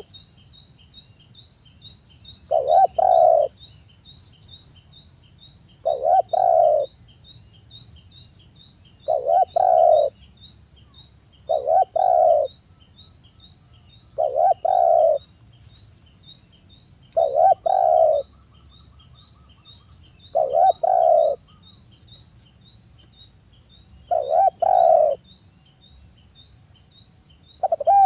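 Spotted dove cooing: a low, multi-note coo phrase about a second long, repeated about every three seconds.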